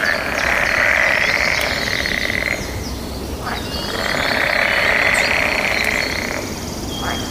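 A chorus of frogs calling, swelling in two long stretches of about two and a half seconds each with a short dip between. Scattered high chirps and a single falling call sit over it in the middle.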